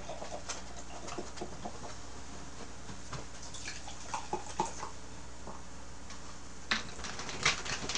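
A dark carbonated drink poured from a bottle into glasses, fizzing and crackling in small ticks, with a couple of sharper clicks near the end.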